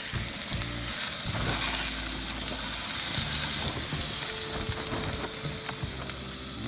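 A whole duck searing in hot oil and butter in a non-stick frying pan, sizzling steadily.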